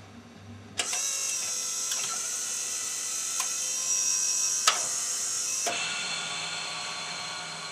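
Rock-ola Tempo II jukebox mechanism starting a play cycle: a hissing mechanical whirr comes in suddenly about a second in, with a few sharp clicks, and eases a little near the end.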